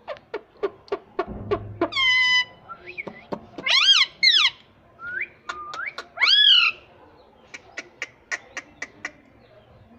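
A parrot chirping and calling: a run of short, sharp chirps, then a few loud drawn-out calls that rise and fall in pitch, and more quick chirps near the end.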